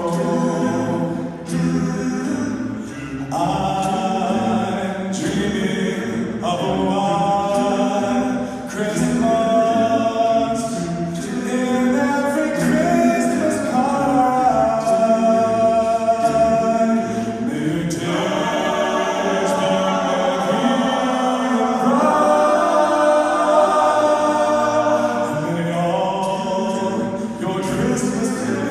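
All-male a cappella group singing in close harmony into handheld microphones, a lead voice over the sustained backing voices of the group.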